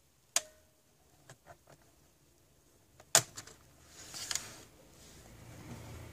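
A ProBook laptop's DVD-ROM drive being opened by hand: a sharp click with a brief ringing tone, a few light ticks, then a louder click about three seconds in as the tray comes free, and a short plastic rustle as the tray is slid out.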